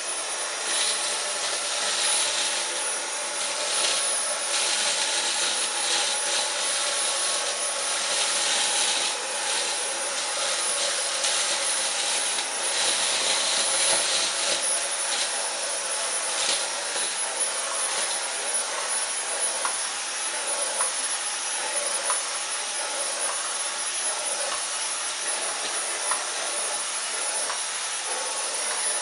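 Dyson V10 Animal cordless stick vacuum running steadily on its medium power setting, a high whine with a fine steady tone on top, switched on at the start. Scattered short crackles and ticks come through as cornflakes are sucked up.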